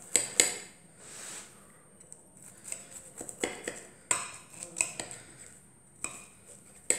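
Metal knife cutting through the crust of a freshly baked potato cake, its blade scraping and knocking against the ceramic baking dish in several sharp clicks, the loudest just after the start and near the end.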